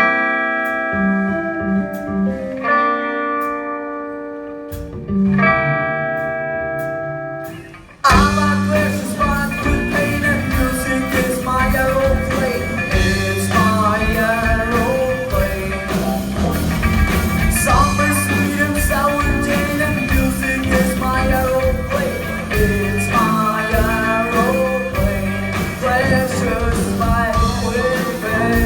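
Rock music: an electric guitar plays held, ringing chords alone. About eight seconds in, drums, bass and a singing voice come in with the full band.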